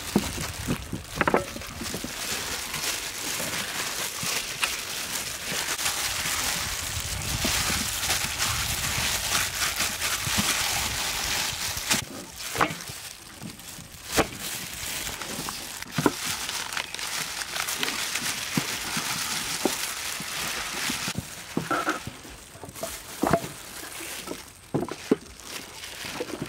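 Hands rubbing dry flour onto whole raw chickens in a metal tray: a steady rustling hiss, with a few sharp knocks now and then.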